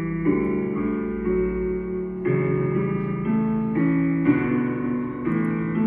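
Instrumental background music, with held piano- or guitar-like chords changing about once a second.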